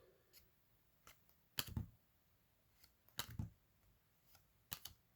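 Baseball trading cards being flicked through by hand, giving quiet soft snaps about every second and a half with fainter ticks between.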